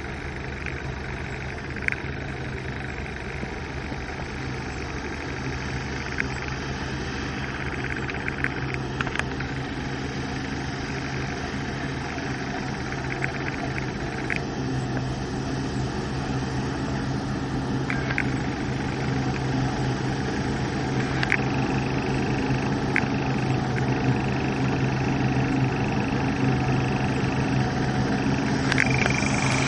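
New Holland CSX7050 combine harvester with a 6 m Geringhoff header running while it cuts and threshes standing cereal: a steady engine and machinery drone with a low hum, growing gradually louder as the combine draws nearer, with a few faint short ticks.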